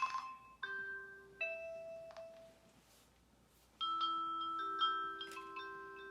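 UniFi Protect G3 Instant camera's built-in speaker playing its chime, a short melody of bell-like notes. A few single notes ring out and fade, then a quicker run of overlapping notes starts about four seconds in. The chime comes as the camera starts blinking, which the owner takes for pairing mode, ready to be added by Bluetooth.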